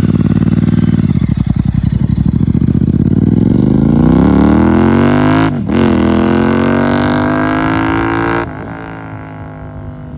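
Royal Enfield Continental GT 650's 648 cc parallel-twin running through a Red Rooster aftermarket performance exhaust: pulsing at low revs, then pulling up through the revs, a brief dip as it shifts up about five and a half seconds in, and climbing again before the sound drops away sharply near the end.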